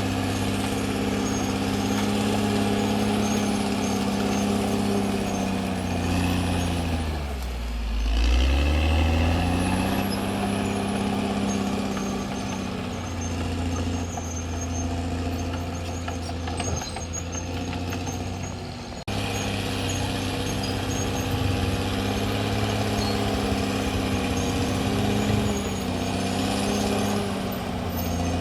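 Caterpillar D6R XL bulldozer's diesel engine running under work. About a quarter of the way in, the engine speed drops sharply and then climbs back up, and about two-thirds of the way through the sound changes abruptly.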